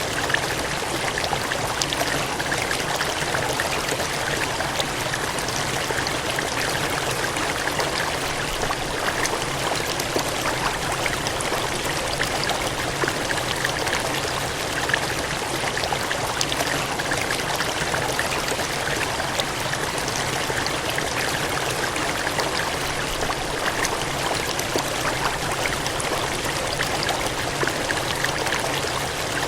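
Water gushing and splashing steadily, a dense even rush with small crackling splashes throughout.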